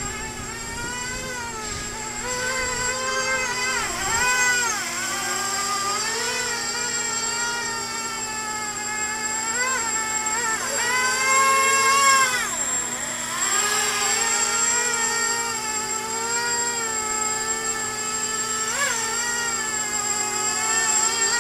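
Y4 mini multirotor's Sunnysky 2204 2300 kV brushless motors spinning 5030 props in flight: a buzzing whine whose pitch rises and falls as the throttle changes. It peaks about twelve seconds in and drops sharply just after.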